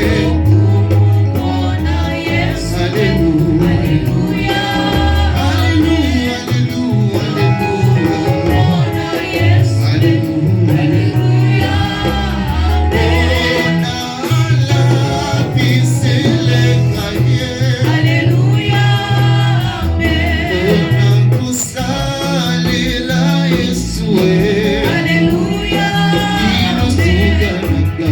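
Gospel praise music: voices singing over a band with a prominent bass line and a steady beat.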